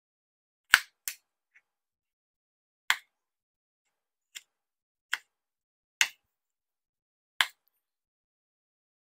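Chef's knife cutting through tomatoes and chillies and tapping down on a plastic cutting board: seven sharp, separate taps at uneven spacing, the loudest under a second in.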